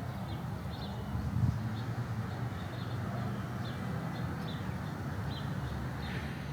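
A steady low rumble with small bird chirps scattered through it.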